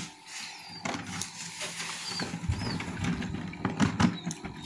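Handling noise around a homemade plastic-tub egg incubator: rustling, bumps and sharp clicks, with a low rumble through the second half. A couple of faint high peeps, typical of chicks hatching inside, come about two seconds in.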